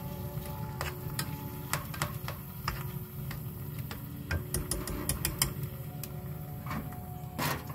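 Irregular sharp clicks and crackles over a steady low rumble, with faint held tones underneath.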